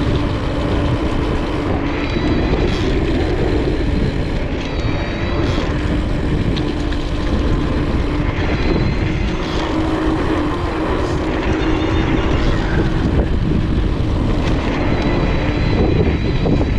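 Electric mountain bike riding downhill: steady rush of wind on the microphone and tyres on the trail, with a steady hum underneath.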